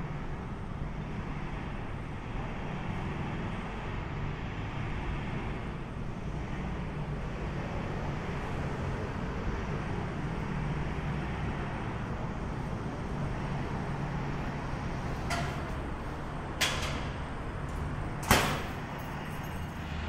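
Steady low rumble of city traffic and engines, with two sharp knocks near the end, the second the loudest.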